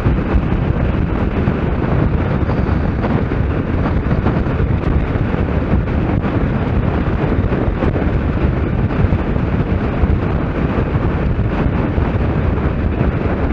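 Steady wind rush buffeting the microphone at road speed, mixed with the running of a Kawasaki Z750S motorcycle's inline-four engine at a steady cruise.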